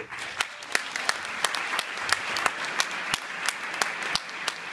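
Audience applauding, starting abruptly and holding steady, with one nearby clapper's sharp claps standing out about three times a second.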